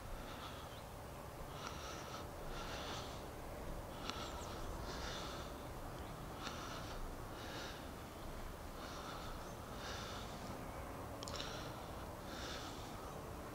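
A man breathing heavily through his nose close to the microphone, an inhale and an exhale paired about every two and a half seconds.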